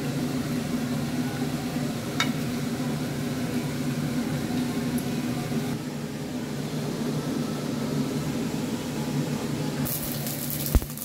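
Steady kitchen hum and hiss. About ten seconds in, green chilli tipped from a cutting board into a hot pot starts crackling, with a knock of the board against the pot.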